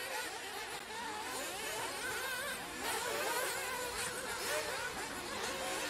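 Several 1/8-scale nitro RC buggies' small two-stroke glow engines buzzing at once, each revving up and down so the pitches overlap and waver as the cars race around the track.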